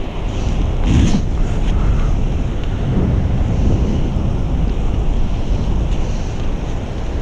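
Wind buffeting the microphone of a camera riding on a moving kite buggy, a dense low rumble mixed with the buggy's wheels rolling over wet sand. There is a brief louder rush about a second in.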